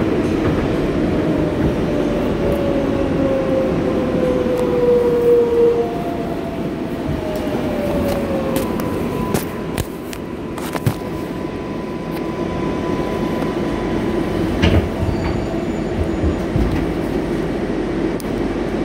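R142A subway car running under way: a steady rumble with a whine that falls in pitch twice in the first half, a steadier high tone around the middle, and scattered clicks from the wheels on the track.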